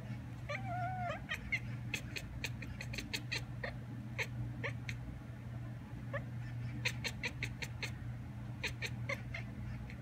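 Domestic tabby cat chattering at birds: short clicking chirps in irregular runs, with one brief wavering meow-like call about half a second in. The uploader takes it for the cat imitating the call of magpies outside.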